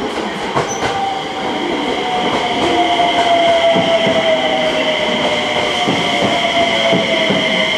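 A JR West 227 series electric train slows into the platform. A motor whine falls slowly in pitch as it brakes, a high steady squeal sits above it, and the wheels click over the rail joints.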